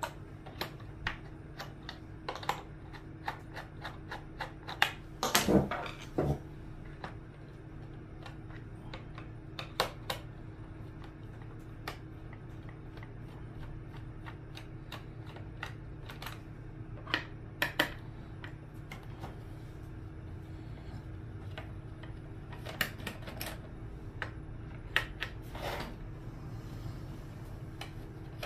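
Scattered small clicks and taps of a screwdriver and screws as screws are backed out of a speaker's case, over a steady low hum. A louder cluster of knocks comes about five to six seconds in.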